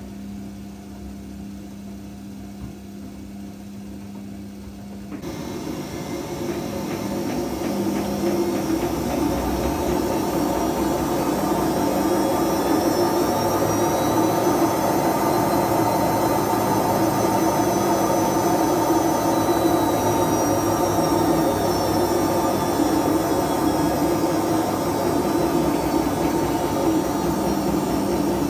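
Washing machine spinning up. A low steady hum for the first few seconds, then about five seconds in a loud rumbling starts and grows as the drum gathers speed, with a motor whine that rises, holds and later falls. The rumble is the sign of worn drum bearings.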